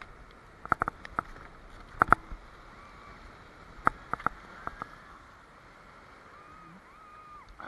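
Paddling a Sevylor Tahiti Plus inflatable kayak in surf: sharp knocks and clicks of the paddle and boat in small clusters through the first five seconds, over a steady hiss of sea and wind. A few faint gliding calls come near the end.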